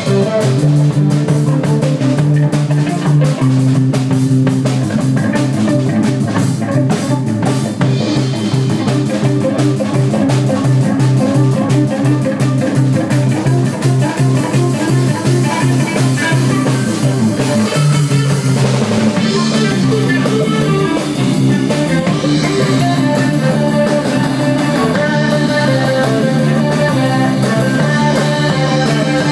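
Live rock band playing loudly, with electric guitar, bass and drum kit. The bass line and chords change about two-thirds of the way through.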